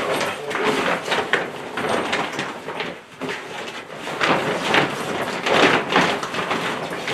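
Mylar-lined grow-tent fabric rustling and crinkling in irregular swells as it is pulled and stretched over the tent's steel tube frame.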